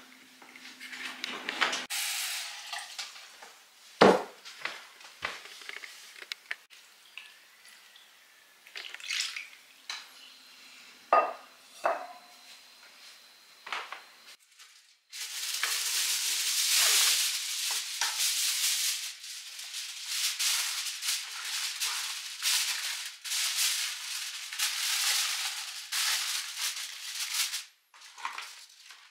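Kitchen work: scattered clinks and knocks of dishes and utensils being handled, then about twelve seconds of dense, fluctuating hissing rustle that cuts off suddenly.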